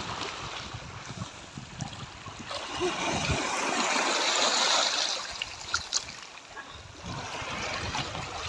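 Shallow seawater splashing and sloshing around the legs of a person wading ashore, over a steady hiss of water that grows stronger in the middle.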